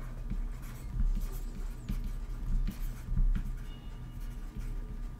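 Stylus writing on a tablet: a run of small, irregular taps and light scratches as letters are handwritten, over a faint steady low hum.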